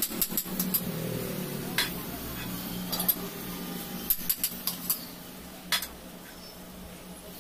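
Steel chuck key clinking and scraping in a lathe's four-jaw chuck as the jaws are adjusted to grip and centre a shaft: a string of sharp metal clicks, thickest about four seconds in, over a low steady hum.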